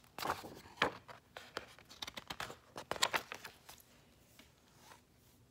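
A page of a paper picture book being turned: rustling and crinkling with several sharp flicks, mostly in the first three and a half seconds.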